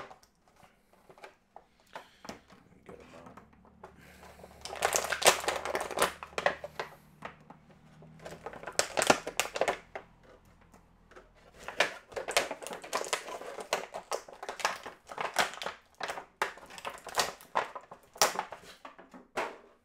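Action-figure packaging being handled and opened: crinkling and rustling in several bursts, with sharp clicks and snaps and short pauses between.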